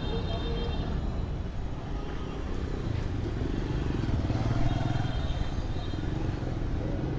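Road traffic and vehicle engines running, with a low engine rumble growing louder about four seconds in.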